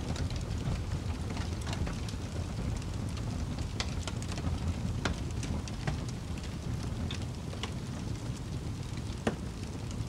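Wood fire burning: a steady low rumble of flames with scattered sharp crackles and pops from the logs, the loudest pop near the end.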